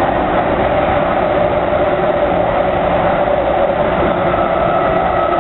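MTR Kwun Tong Line train running between stations, heard from inside the carriage: a steady, loud rumble of wheels and traction motors. A faint higher whine comes in near the end.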